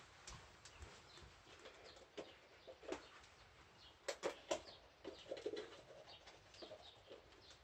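Quiet handling sounds: soft clicks and taps from gloved hands working wet acrylic paint on a canvas, the loudest cluster about four seconds in, over faint bird chirps.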